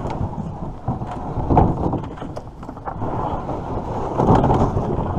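Wind rumbling on the microphone, swelling twice, with scattered light knocks.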